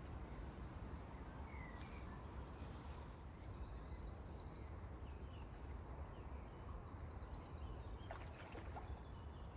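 Low, steady rumble of wind buffeting the microphone, with a brief run of about five quick, high clicks about four seconds in.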